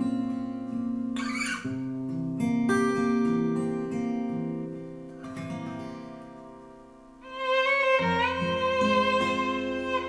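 Recorded music played through Dali Oberon 1 bookshelf speakers driven by a Marantz PM6007 amplifier and picked up in the room: a plucked acoustic guitar intro whose notes fade down, then bowed strings come in loudly about seven seconds in.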